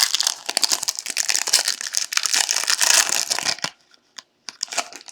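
A trading card pack wrapper being crinkled and torn open, with dense crackling for about three and a half seconds, then a few faint clicks as the cards are handled.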